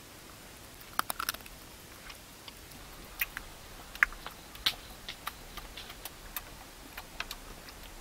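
Eating sounds: irregular short crisp clicks and crunches of chewing and biting, one or two a second, the loudest about four seconds in, over a faint hiss.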